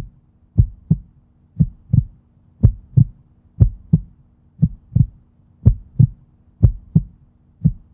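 Heartbeat sound effect: paired low thumps (lub-dub) repeating about once a second, over a faint steady low drone.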